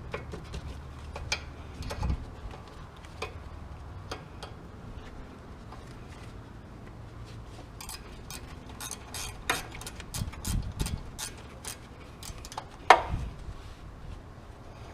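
Hand tools working on a car's brake hose fitting: scattered metal clicks and clinks, a quick run of ratchet clicks from about eight to eleven seconds in, and one sharper metal knock near the end.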